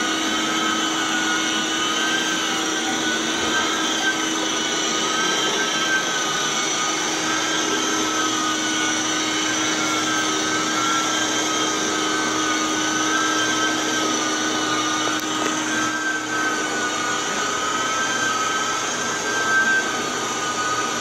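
Rotovac DHX rotary carpet-extraction head running over carpet under the extractor's suction: a steady rushing suction with a high whine that wavers slightly.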